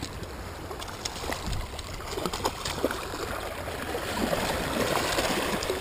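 Shallow surf water sloshing and splashing, with short splashes from a small hooked fish thrashing at the surface. The water noise grows louder over the last couple of seconds.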